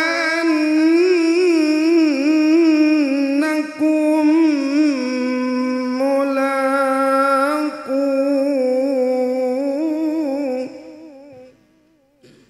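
A man's melodic Quran recitation (qiroah, tilawah) through a handheld microphone: long held notes in a high register, ornamented with wavering pitch, with two brief breaks for breath. The voice fades away a little before the end.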